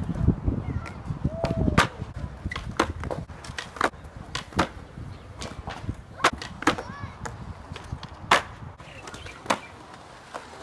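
Skateboards on a concrete skatepark: a low rumble of wheels rolling for the first two seconds, ending in a loud clack, then a string of sharp clacks of tails and wheels hitting the concrete box and ground.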